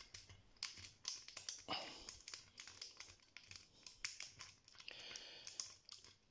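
Faint, irregular metallic clicks and scrapes of a lock pick working the sliders inside a slider bicycle lock, held under strong tension by a tension wrench. The sliders give little feedback, so the clicks are small.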